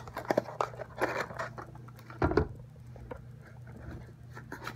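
Small cardboard boxes being handled inside a larger shipping box: sliding, scraping and light knocking, with a louder bump about two seconds in. A steady low hum runs underneath.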